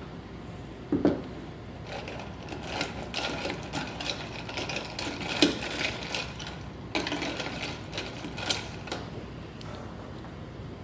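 A run of irregular clicks, taps and rattles of kitchen utensils and containers while a coffee drink is put together, with a knock about a second in.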